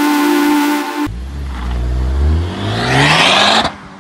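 Electronic background music for about a second, then a Honda car's engine revving as it accelerates hard, its pitch climbing steadily under a growing rush of noise until it drops away suddenly near the end.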